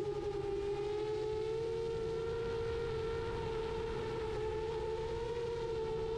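Brushless motors and 7-inch propellers of an iFlight Chimera 7 Pro FPV quadcopter whining steadily in flight, recorded by the onboard camera's own microphone. The pitch rises a little about a second in and then holds.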